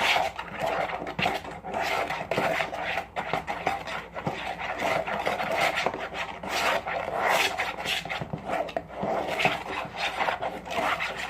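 A utensil stirring and scraping against a bowl, mixing glow-in-the-dark powder into white glue, in a continuous run of uneven scraping strokes.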